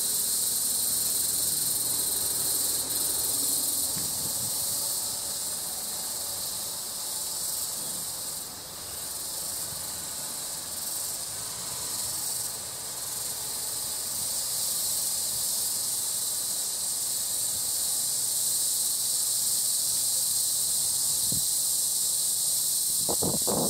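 Tropical insect chorus: a steady, high shrill buzz that holds unbroken throughout.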